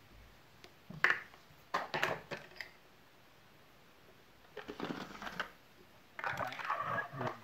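Plastic vacuum cleaner attachments handled on a tiled floor: a few sharp knocks about a second and two seconds in, then two spells of rustling clatter, around five seconds and near the end.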